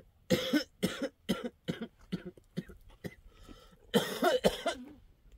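A person coughing in a fit: a string of about seven short coughs, then a louder double cough about four seconds in.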